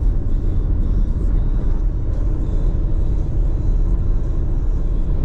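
Steady low road and engine rumble of a vehicle being driven, heard from inside the cabin.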